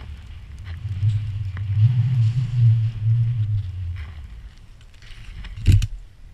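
Skis running through deep powder snow, with wind buffeting the action camera's microphone as a low rumble for a few seconds. A single sharp knock comes near the end.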